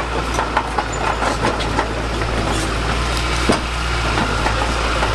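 Diesel engine of a heavy construction machine running steadily, with scattered clicks and knocks over it and one sharper knock about three and a half seconds in.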